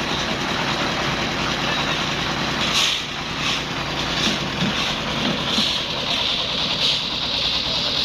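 Concrete mixer's engine running steadily with the drum turning. From about three seconds in, short sharp noises repeat roughly every two-thirds of a second over the engine.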